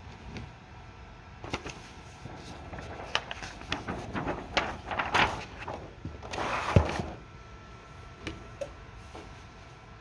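DTF transfer film being tilted and worked under a pile of hot-melt adhesive powder: irregular plastic-film rustling and crinkling with scattered clicks, and one louder swish with a thump about six and a half seconds in.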